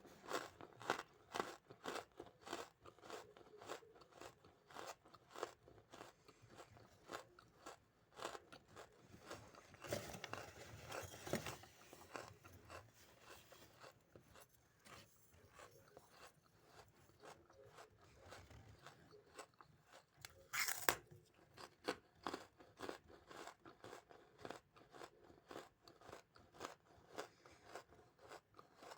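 Close-miked chewing and crunching of brittle wood charcoal: a steady run of small, quick crackles, with louder bites about ten seconds in and one sharp loud crunch about twenty-one seconds in.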